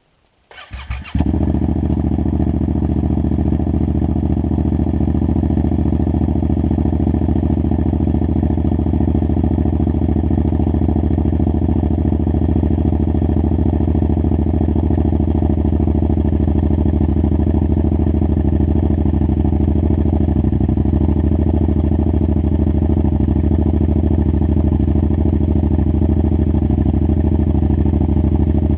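2016 Yamaha FZ-07's parallel-twin engine cold-started through a cheap aftermarket full exhaust with the baffle removed. The starter cranks briefly, the engine catches about a second in, and it settles into a steady, loud idle.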